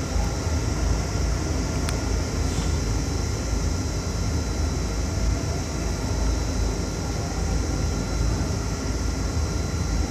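Outdoor ambience dominated by wind buffeting the microphone as an uneven low rumble, with a steady high hiss and a few faint steady tones over it.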